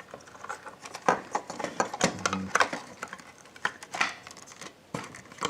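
Irregular small clicks and taps of hard plastic and small parts being handled while a plastic toy camcorder is worked on.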